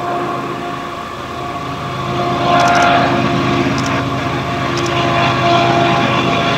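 Diesel engine drone of a Union Pacific GE ES44AC locomotive leading an intermodal train across a steel trestle bridge: a steady hum with several held tones. It grows louder about two and a half seconds in, with a few faint high clicks.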